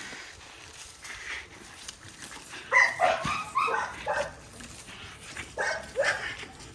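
A dog barking: a quick run of short, sharp barks starting about three seconds in, then two more near the end.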